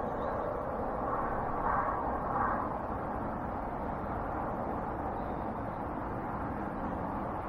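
Steady outdoor background rush with no distinct events, swelling slightly about two seconds in.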